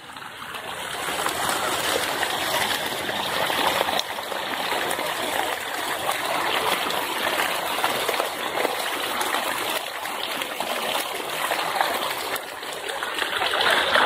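Water gushing out of a split in a tree trunk and splashing onto the rocks below: a steady rushing that grows louder over the first couple of seconds and then holds.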